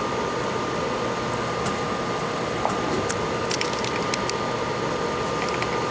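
Steady fan-like hum with a thin constant whine running under it; a few faint light ticks come about three to four seconds in.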